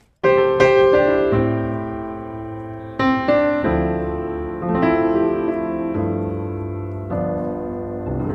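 Slow piano music: notes and chords struck every second or two, each left to ring and fade.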